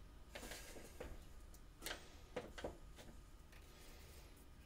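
Faint handling of laser-cut wooden box parts on a workbench: a few light clicks and taps, two or three of them close together about two seconds in.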